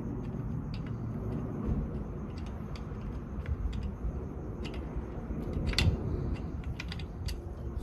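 Scattered light metallic clicks and clinks of wheel-fitting work, such as lug nuts and hand tools being handled, over a steady low rumble. The sharpest click comes about six seconds in.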